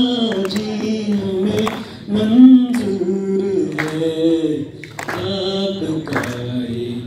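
A man singing solo into a handheld microphone, amplified through the hall's loudspeakers, holding long notes that slide up and down.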